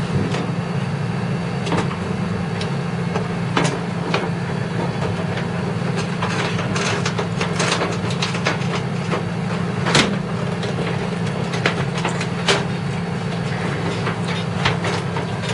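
Scattered clicks and knocks of computer parts and cables being handled during PC assembly, over a steady low hum. The loudest knock comes about ten seconds in.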